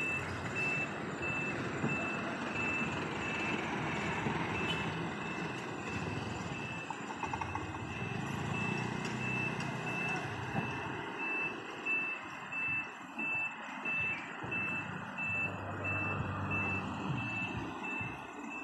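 Truck reversing alarm beeping: one short high beep repeating at a steady pace, over the engines of passing trucks, motorcycles and a car.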